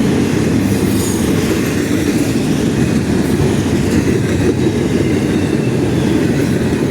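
A freight train's cars rolling past close by: a steady, loud rumble of steel wheels on the rails.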